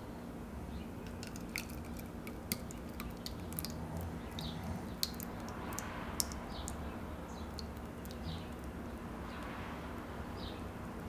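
Thick salsa verde poured into a clay bowl: soft wet splats over a steady low hum, with scattered sharp clicks and a few short high chirps.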